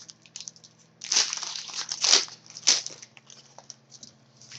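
A trading card pack wrapper being torn open, crinkling and crackling in three main bursts about a second apart, with smaller rustles between them.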